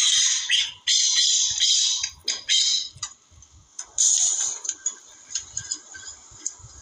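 Francolin calling: a run of harsh, grating notes, loud through the first three seconds, another burst about four seconds in, then fainter scattered notes.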